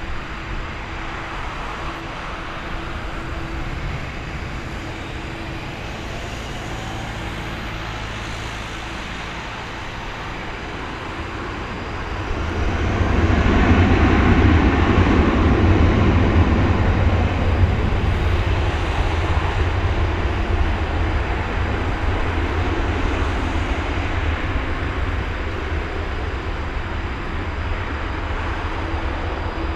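Airbus A321-231 jet engines running, then spooling up to takeoff thrust about twelve seconds in. A loud low rumble follows as the airliner rolls down the runway away from the listener, slowly fading.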